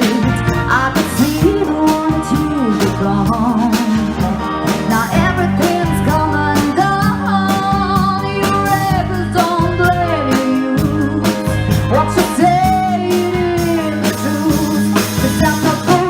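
Soul-blues band playing: drums and bass keep a steady beat, with guitar and a bending melody line over them.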